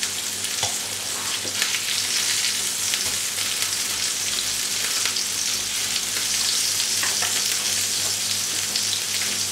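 Beef burger patties sizzling steadily in a non-stick frying pan, cooking in the fat rendered from the mince with no oil added. A few light taps come from a plastic spatula turning the patties over.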